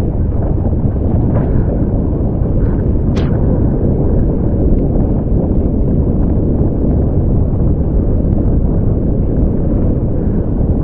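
Strong wind buffeting the microphone, a steady low rumble, with water rushing past a sailing boat moving fast in high wind. A short sharp tick about three seconds in.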